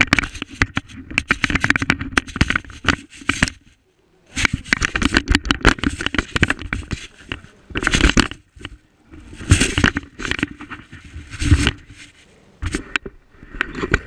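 Scraping, rubbing and knocking from a GoPro camera strapped to a dog's back in a harness as the dog moves and rolls about, the housing and mount rubbing against fur and surfaces. It comes in uneven bursts of crackly clicks, with two short lulls.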